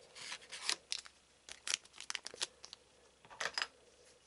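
Trading cards and their foil booster-pack wrapper being handled: a few quiet clusters of short rustles, crinkles and light clicks, as cards are slid and set down and the next pack is picked up.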